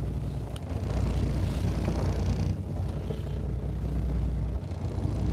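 Fishing boat's engine running steadily at idle, a low hum, with wind on the microphone and sea noise that swells briefly about a second in.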